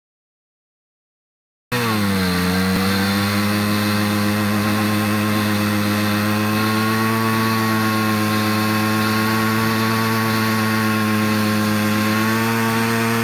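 Simson moped's single-cylinder two-stroke engine running at a steady speed. It cuts in abruptly after about two seconds of silence, dips slightly in pitch, then holds an even, buzzing tone.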